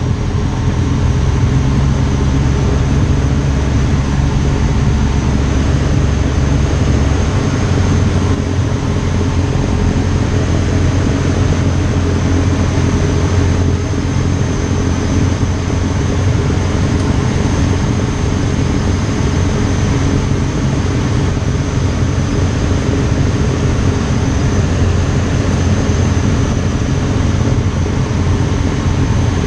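Piper Pawnee tow plane's engine and propeller droning steadily, heard from inside the cockpit. The deepest part of the drone drops away about seven seconds in.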